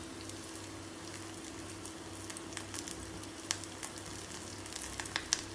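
Bread cup deep-frying in hot ghee: a steady sizzle with scattered sharp crackles and pops, over a low steady hum.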